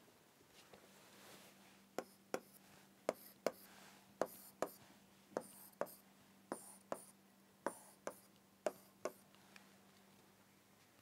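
A pen drawing seven short arrows on a writing board, one about every second: each arrow is a sharp tap, a brief scratchy stroke and a second tap.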